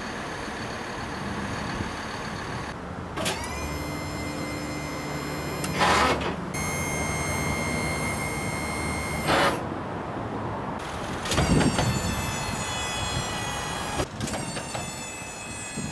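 Motor-driven outrigger jacks of a truck-mounted mobile command unit running in several separate runs, each a whine that rises in pitch as it starts and then holds steady while the jacks lower onto their pads. A steady hum comes before the first run, and two of the runs stop with a brief loud noise.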